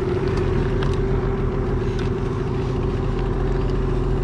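A boat's outboard motor running at a steady, even speed, a constant drone with no change in pitch.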